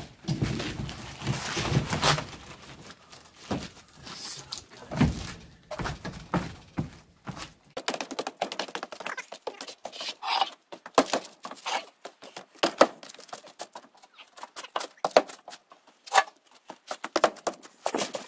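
Irregular knocks and thumps from a fiberglass boat deck being set down onto resin-coated plywood and weighted with concrete pavers.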